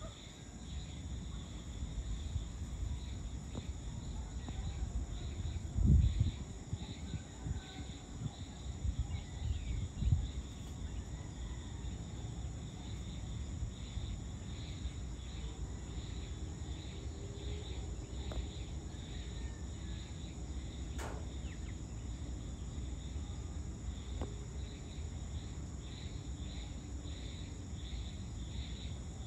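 Insects, crickets among them, chirring in a steady high-pitched evening chorus with a regular pulse, over a low outdoor rumble. Two loud low bumps come about six and ten seconds in, and a single sharp click comes after about twenty seconds.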